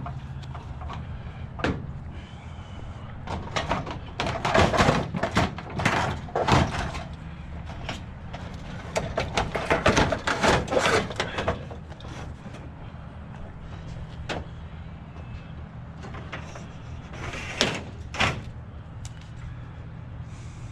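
Clattering and knocking of scrap and electrical cords being handled and sorted, in two busy spells and a couple of later knocks, over a steady low hum.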